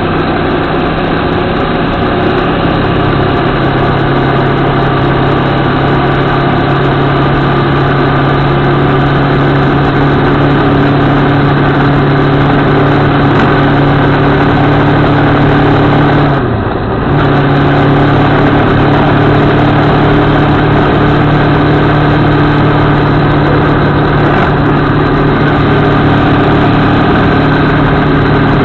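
CFMOTO 650MT parallel-twin motorcycle engine running steadily at road speed, heard from a camera mounted on the bike. The engine note drops briefly once, just past halfway, then resumes.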